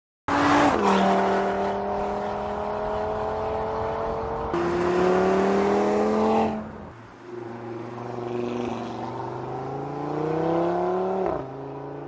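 Audi RS 3's 2.5-litre turbocharged five-cylinder engine accelerating hard, its note rising steadily. The pitch drops at an upshift about four and a half seconds in. The engine eases off around six and a half seconds, climbs again, and drops sharply at another upshift near eleven seconds.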